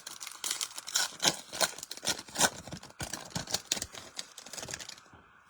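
Chrome trading cards being handled and slid against one another: a quick, uneven run of clicks and rustles that stops about five seconds in.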